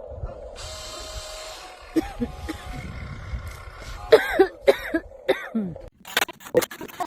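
Toy RC dump truck's small electric motor and gears whining in short bursts that rise and fall in pitch as the throttle is pulsed, followed by several sharp clicks and knocks near the end.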